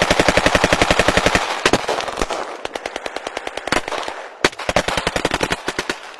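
A rapid, even run of sharp cracks, about a dozen a second, like automatic gunfire, in a few bursts with short breaks. It grows fainter and cuts off sharply at the end.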